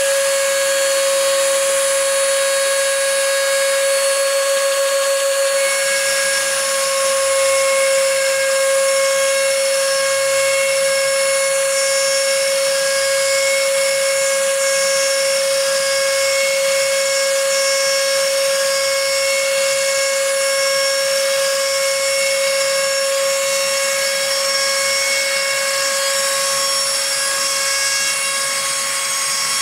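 Rotary-tool spindle of a Shapeoko 2 CNC router running with a steady high-pitched whine as its fine engraving bit cuts letters into soft wood.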